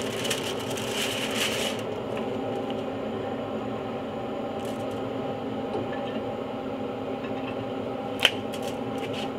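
Aluminium foil crinkling for about the first two seconds as the wrapped salmon is set on the grate, over a steady hum from the Yoder YS1500 pellet grill's fan running; a single sharp click a little after eight seconds in.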